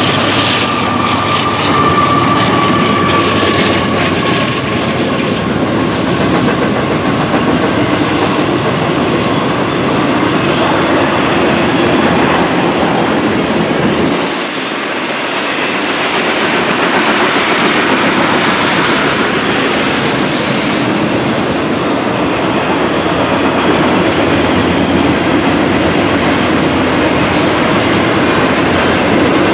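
Loaded Canadian Pacific double-stack container cars rolling past, their wheels clattering steadily over the rail. A high wheel squeal, typical of flanges on a curve, sounds in the first few seconds and slowly falls in pitch as it fades. The rolling noise dips briefly about halfway through.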